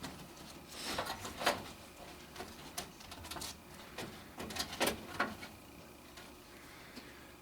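Scattered light clicks, taps and knocks of hands and tools handling parts inside an air handler cabinet, irregular and unrhythmic, with the sharpest knocks about a second and a half in and again around five seconds.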